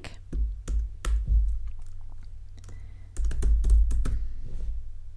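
Typing on a computer keyboard: quick runs of key clicks, one near the start and another about three seconds in.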